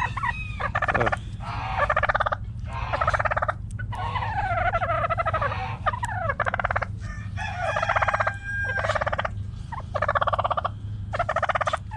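Domestic turkeys gobbling over and over, about one rapid rattling gobble every second or so.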